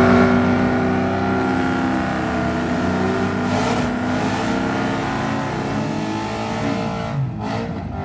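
Drag racing car engine at full throttle, running loud with a high, steady engine note that sinks slightly as it goes, starting suddenly.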